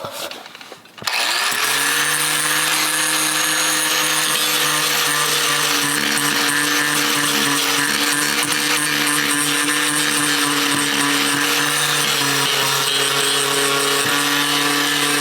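Angle grinder fitted with a 50-grit sanding pad spinning up about a second in, then running steadily as it sands a plastic water tank, and stopping near the end.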